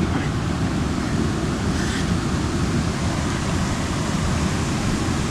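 Waterfall pouring into a deep pool: a steady, even rush of falling water, heavy in the low range.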